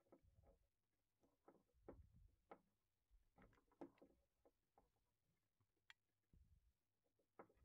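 Faint scattered clicks and light taps of small machined plastic parts being pushed together on a steel bolt, with a few soft low handling bumps.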